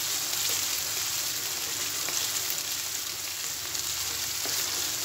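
Sarson ka saag, freshly tempered with fried ginger and garlic, sizzling and bubbling steadily in an aluminium pan as a wooden spoon stirs it.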